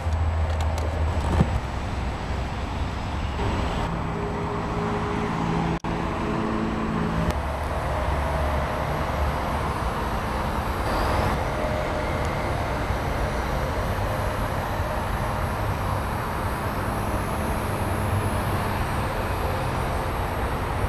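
Steady road traffic noise with a low rumble, with a pitched hum from a passing vehicle between about three and seven seconds in. The sound drops out for an instant about six seconds in.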